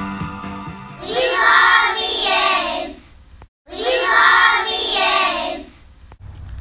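A group of children's voices in unison, heard twice in near-identical stretches with a brief silent break between; guitar music fades out in the first second.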